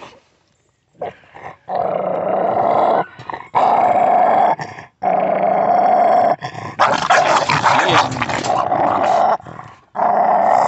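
American pit bull terriers growling over a freshly killed raw bird as they eat: long, continuous growls broken by a few short pauses.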